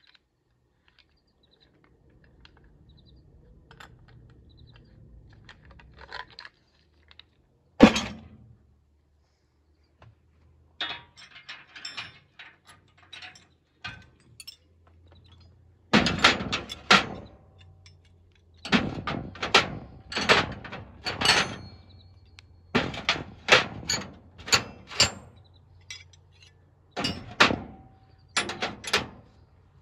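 Metal hand tools and parts being handled: sharp metallic clicks and clanks in quick clusters through the second half, with one loud knock about eight seconds in, over a faint low steady hum.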